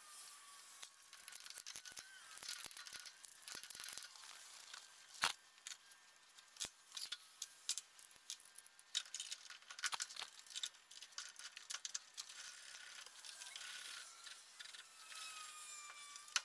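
Light metallic clicks, taps and rattles of a Chevy brake caliper being handled and fitted over the rotor onto a Dana 44 front knuckle, with a sharper knock about five seconds in and another a little later.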